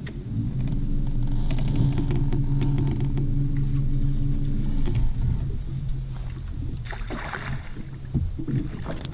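Bow-mounted electric trolling motor running with a steady low hum, strong for about five seconds and then easing off. A short rush of noise comes about seven seconds in.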